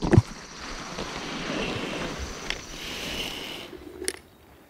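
Handling noise as the camera is moved: a loud thump at the very start, then a steady rustle for about three and a half seconds, ending in a sharp click.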